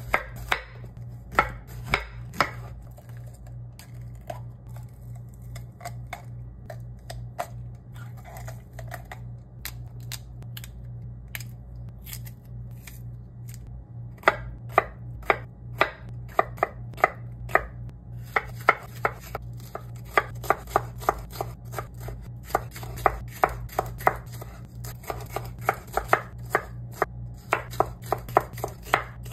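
Chef's knife slicing bell peppers on a bamboo cutting board. At first there are a few scattered cuts, then from about halfway through come quick runs of sharp knocks as the blade strikes the board.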